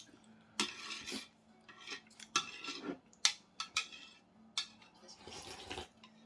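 Utensils clinking and scraping against a bowl during a meal of rice noodle soup, in a string of short, irregular clicks and swishes.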